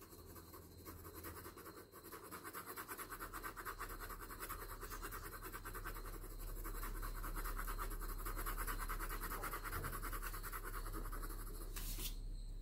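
Pencil lead scratching on drawing paper in rapid, even back-and-forth shading strokes, laying tone down the side of a drawn cylinder. A single sharp tick comes near the end.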